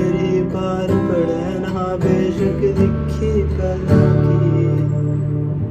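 A man singing to a strummed acoustic guitar, with a fresh strum about once a second.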